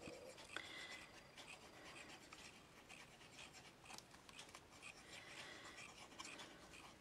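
Faint scratching and rubbing of a small paper jigsaw piece being handled and glued with a fine-tip glue bottle, with a few light ticks.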